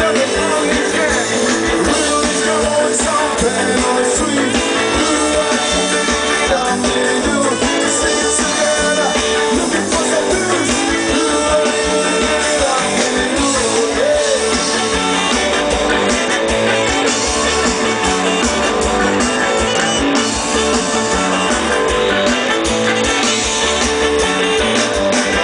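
Live band playing reggae-style music, with electric guitar and a pulsing bass line.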